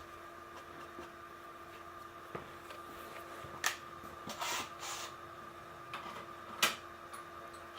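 A few light clicks and knocks of tools and workpiece being handled, the sharpest two about a third of the way in and near the end, over a steady faint hum.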